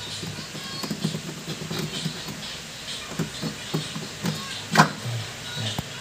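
Irregular small clicks and knocks of a washing machine's clutch parts being worked by hand on the spin shaft, the sharpest near five seconds in.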